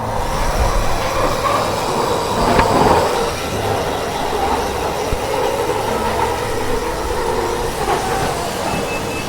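A train running, a steady rumbling noise with no clear breaks.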